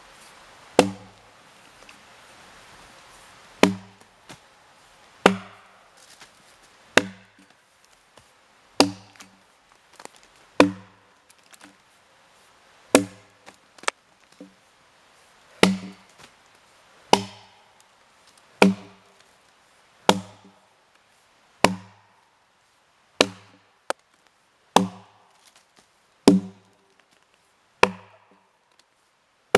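Jersey-pattern axe with a 3.5-pound head chopping into a felled white ash log, bucking it into sections: sharp, evenly paced blows about every one and a half seconds, each a crack with a dull thud in the wood.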